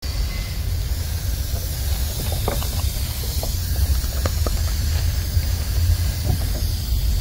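Garden hose spray nozzle hissing steadily, over a steady low rumble, with a few brief faint squeaks in the middle.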